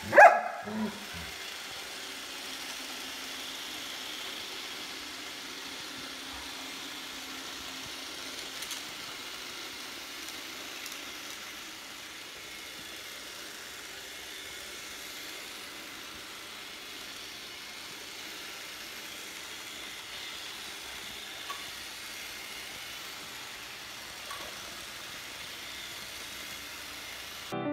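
Robot vacuum running on carpet, a steady whirring hum with brush hiss. A German Shepherd gives one bark right at the start.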